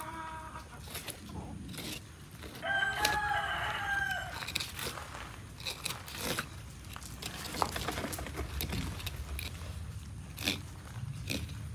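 A rooster crows, one long call about three seconds in, with a fainter crow at the start; between them come short scratchy clicks of a fillet knife working through a gar's hard scales and skin.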